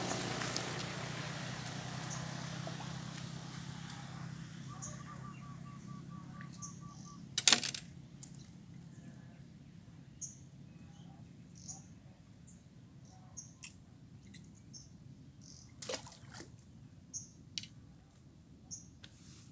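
Quiet open-air ambience. A broad rush of noise fades away over the first several seconds, and a short, even trill comes about five seconds in. Small high chirps repeat throughout, with a sharp knock about seven seconds in and a fainter one near sixteen seconds.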